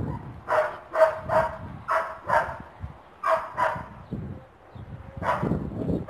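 Dog barking in quick pairs, about one pair a second, with a short pause partway through.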